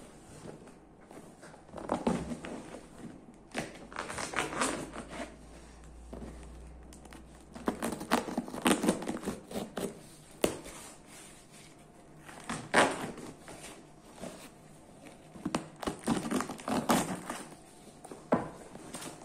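A knife slitting packing tape on a cardboard box and the flaps being torn and pulled open: irregular bursts of scraping, ripping and crinkling, with a few knocks of the box against the table.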